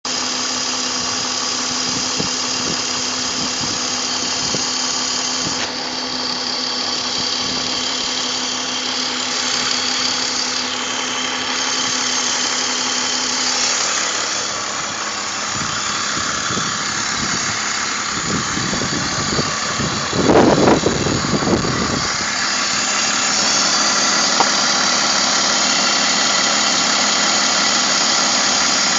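BMW M54 straight-six idling steadily with a constant hiss, while its fuel-trim adaptations are reset. About twenty seconds in there is a louder, rougher rumble lasting about two seconds, then the steady running goes on.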